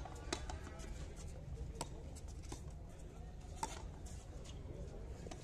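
A frontón ball being hit and rebounding off the wall and concrete floor during a rally: a string of sharp smacks roughly a second apart.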